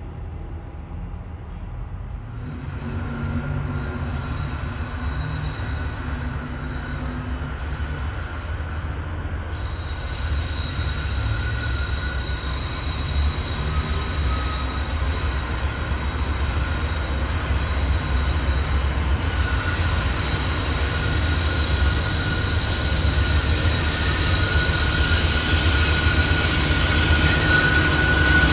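A train rolling past with a low rumble and high, steady wheel squeal, growing steadily louder as it comes closer.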